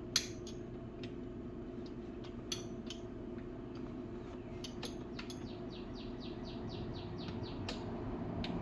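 Hand tools being handled, with a sharp click near the start and another about two and a half seconds in. From about five seconds in comes a run of about five quick, even clicks a second, like a ratchet wrench being turned, lasting a little over two seconds.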